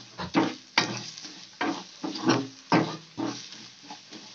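Spatula scraping and stirring ground spices and onion-garlic paste around a kadhai, with the masala sizzling in hot oil as it is roasted. The scrapes come in quick, uneven strokes, roughly two a second.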